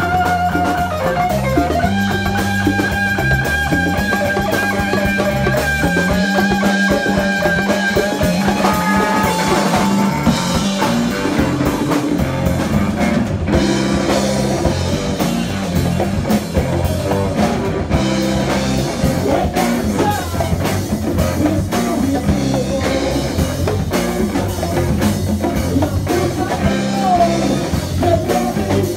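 Live rock band playing loudly: electric guitars, bass and drum kit with hand-played congas. A lead guitar holds long sustained notes that bend upward about a third of the way in.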